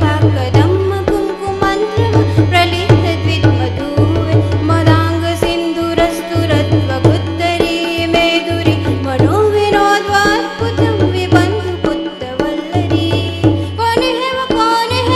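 Live Indian music: tabla and harmonium accompanying a woman singing a drawn-out melody without clear words.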